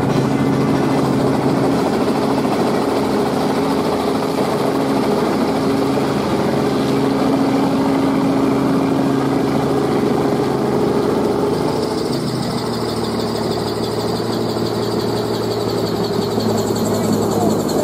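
Helicopter engine and rotor drone heard from inside the cabin as it sets down on a floating pontoon helipad. The drone is steady, drops in pitch about twelve seconds in, and a higher whine comes in near the end.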